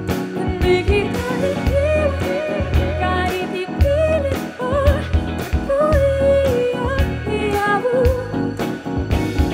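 Live band music: a woman sings a Tagalog pop melody at the microphone over keyboard and a drum kit keeping a steady beat.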